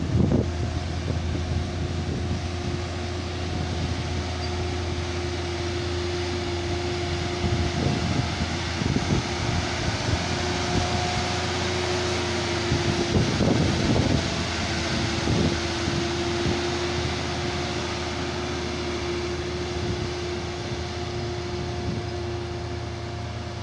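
Steady vehicle engine and road noise with a constant whine, with wind buffeting the microphone a few times in the middle.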